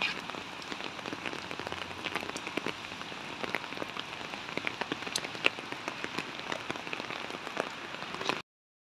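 Steady rain falling, with many single drops ticking sharply close by. The sound cuts off suddenly near the end.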